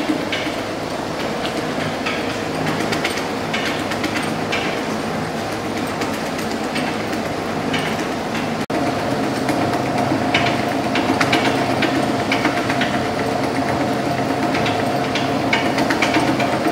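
Factory roll cutter and its conveyor belt running while slicing squid: a steady machine hum with scattered clicks and clatter, and a higher steady whine that sets in about halfway through.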